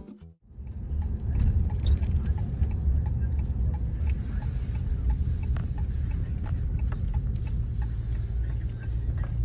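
Steady low rumble of a running motor vehicle, heard from inside, with scattered small clicks and rattles. It starts suddenly about half a second in.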